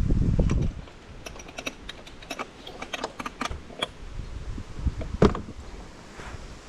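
Wind buffeting the microphone for a moment at the start, then a scatter of irregular sharp light clicks and crackles, one louder click about five seconds in.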